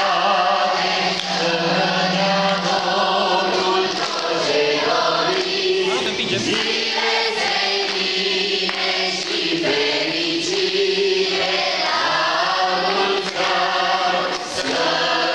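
A large group of young male and female voices singing a Romanian Christmas carol (colindă) together, steadily and loudly.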